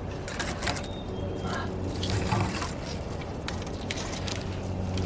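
Leafy branches rustling and crackling in irregular bursts, loudest about two seconds in, over a steady low hum.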